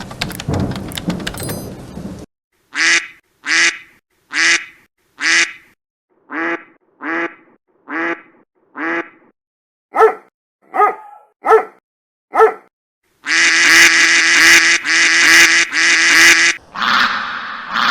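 Duck quack sound effect repeated in a string of edited variations. A rain-like noise ends about two seconds in. Then come two sets of four separate quacks and a set of four sharper ones, followed by a dense, rapid run of quacks and a smeared, blurred version near the end.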